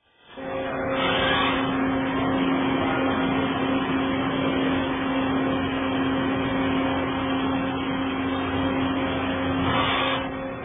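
Goodway GLS-200Y CNC turning lathe running, its chuck spinning a metal workpiece against the turning tool. It makes a steady machine hum with a constant low tone. The sound starts abruptly, grows harsher briefly about a second in and again near the end, and cuts off suddenly.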